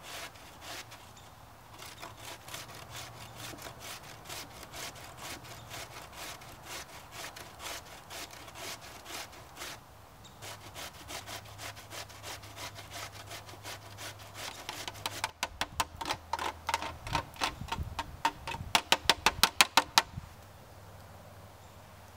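Raw potato grated on a stainless steel box grater: a run of rasping strokes, each a scrape of potato over the blades. The strokes come faster and louder for a few seconds near the end, then stop about two seconds before the end.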